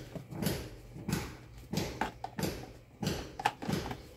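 Rear motor cover of an Arno electric fan being worked onto the motor housing: a run of short scraping and rubbing strokes, roughly one every half second or so.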